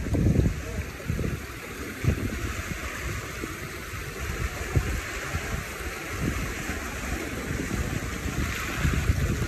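Shallow seawater washing and lapping at the shore, with wind buffeting the microphone in irregular low gusts.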